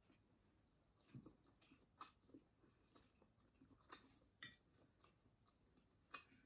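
Faint mouth sounds of a person chewing soft, sticky glutinous rice cake (suman): scattered small smacks and clicks.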